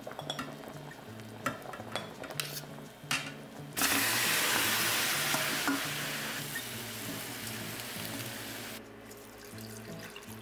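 Pork back ribs in a steel pan: soft bubbling and ticking at first, then about four seconds in a loud sizzle starts suddenly and fades slowly over about five seconds. Soft background music runs underneath.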